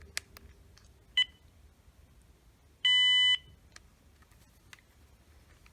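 Uniden EXT1160 cordless phone handset beeping as a caller ID log entry is deleted: a short key beep about a second in, then a louder, steady half-second beep near the three-second mark, with a few faint button clicks around them.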